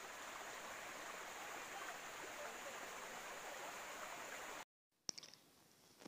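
Shallow rocky stream flowing: a soft, steady rush of running water that cuts off suddenly about three quarters of the way through.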